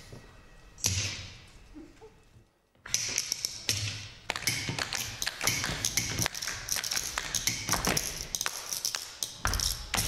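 One sharp knock about a second in. From about three seconds in, shoes tap and stamp on a stage floor in rapid dance footwork.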